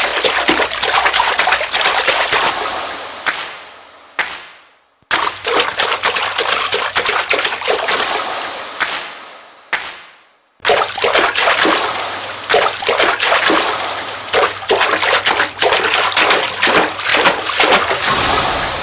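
Shallow water splashing and sloshing as a person wades and kicks through it. It comes in three stretches, each fading away, with two short silences between.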